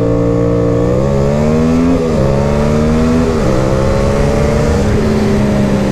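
Yamaha MT-07's parallel-twin engine, fitted with an open SC Project exhaust, under hard acceleration. Its pitch climbs, drops at an upshift about two seconds in, climbs again and drops at a second upshift about three and a half seconds in, then holds roughly steady toward the end, with wind rush over the microphone.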